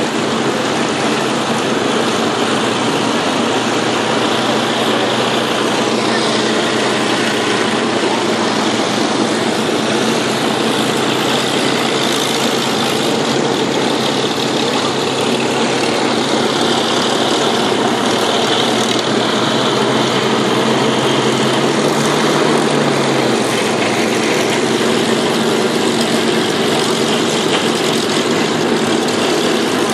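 Supermarine Spitfire V12 piston engines running at low power as the fighters taxi, a steady propeller-engine drone.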